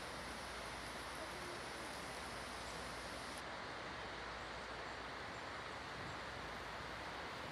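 Thunderstorm wind roaring through leafy treetops: a steady, even rush of wind in the leaves with no breaks.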